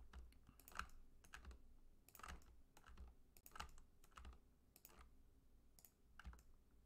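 Faint computer mouse and keyboard clicks, irregular and about two a second, as edges are selected and a button is pressed in 3D modelling software.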